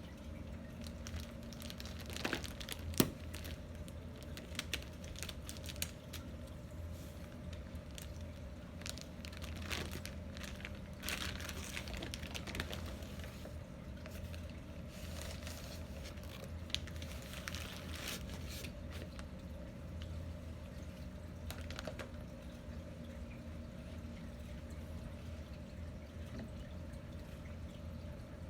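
Scattered clicks and short crinkling, rustling handling noises, the loudest a sharp click about three seconds in, over a steady low hum.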